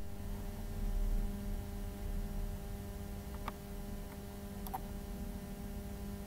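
Steady electrical hum over a low rumble, with a few faint clicks about halfway through.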